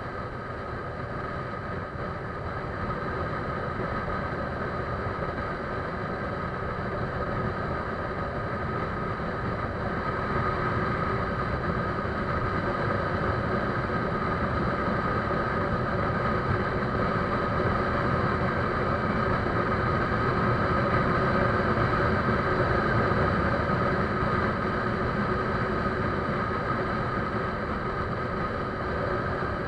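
A steady engine or motor running without a break, slowly growing louder through the first twenty seconds or so.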